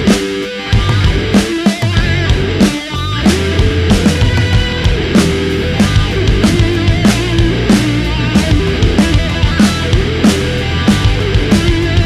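Heavy metal music with driving drums and distorted guitar.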